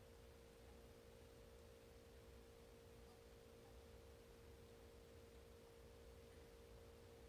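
Near silence with a faint, steady, even-pitched hum.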